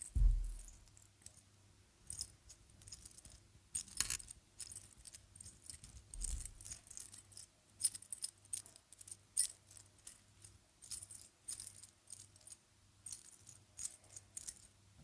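A long necklace chain with a deer pendant clinking and jingling in the hands, many small metal clicks one after another, with a soft thump just after the start and another about six seconds in.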